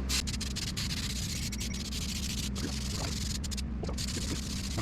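Aerosol contact adhesive spraying in a steady hiss, broken off briefly a few times, over a steady low hum.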